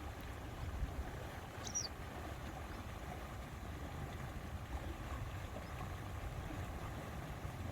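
Steady low wind rumble on the microphone over a soft, even outdoor hiss, with one short, high bird chirp a little under two seconds in.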